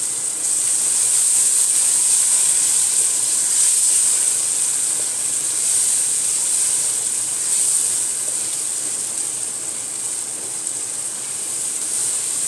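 Curry spice paste sizzling and hissing in hot oil in a pan just after a splash of water, the water cooking the masala down (kosha). Steady, loudest in the first few seconds.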